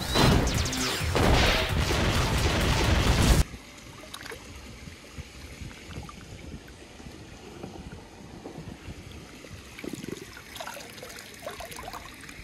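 Loud film soundtrack of music and noise that cuts off abruptly about three and a half seconds in, followed by faint rustling with scattered small clicks.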